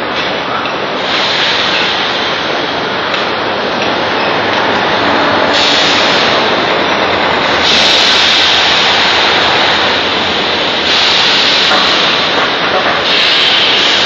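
Foundry molding line running: a steady, loud machinery din, with repeated surges of hissing air lasting one to three seconds each from the pneumatic jolt squeeze molding machines.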